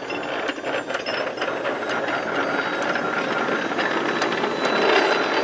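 Anchor chain rattling and clanking over the bow windlass as the anchor is hauled up, a dense run of metallic clicks that grows louder near the end.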